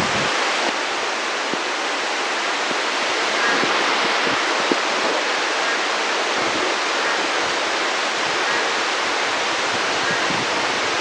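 Heavy rain falling steadily: a dense, even hiss with a few faint taps of drops.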